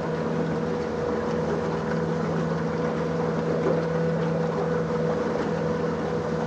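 Outboard motor of a small aluminium boat running steadily under way, a constant engine hum over the rush of wind and water.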